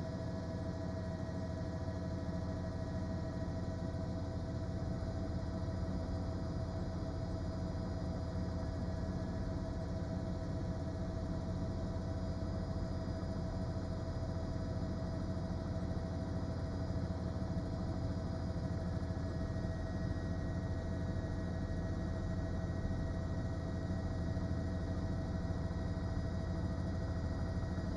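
News helicopter's engine and rotor noise heard inside the cabin through the reporter's open microphone: a steady low drone with a constant whine over it.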